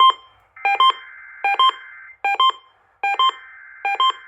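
Emergency Alert System test header on a radio broadcast: buzzy SAME data bursts, each about a second and a half long with a short gap between them. Over them a loud double beep repeats about every 0.8 s.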